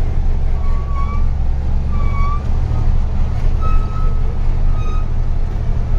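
Truck's diesel engine running with a steady low drone, with a few short high tones sounding over it.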